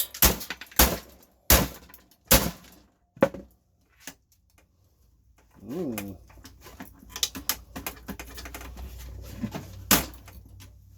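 Hammer blows smashing an old cassette deck: five sharp strikes, each under a second apart, then a pause. A short squeak, a run of small knocks and rattles, and one more hard strike near the end.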